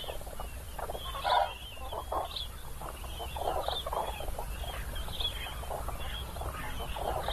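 A flock of common cranes calling: many overlapping trumpeting calls, one louder call about a second in, over a low steady rumble.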